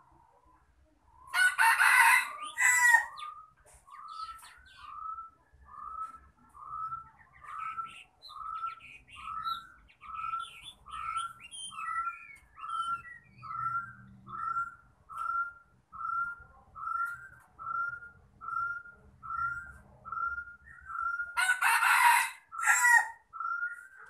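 A rooster crows loudly twice, about a second in and again near the end. Between the crows a bird repeats a short rising call note, about one and a half times a second.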